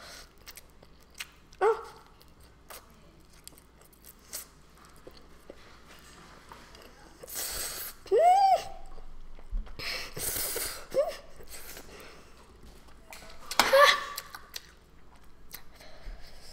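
A person eating extra-spicy instant noodles with chopsticks, slurping noodles in a few bursts. Between the slurps come short, high-pitched vocal squeaks and whimpers, a reaction to the burning heat. Otherwise it is quiet, with light mouth and chopstick noises.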